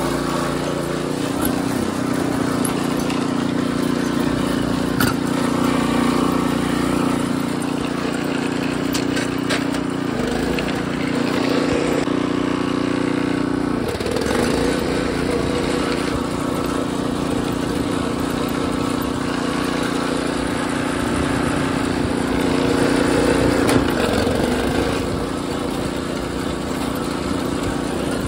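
Harbor Freight Predator 212 single-cylinder engine in a 1989 Wheel Horse garden tractor, running steadily while driving. Its pitch dips briefly about four times.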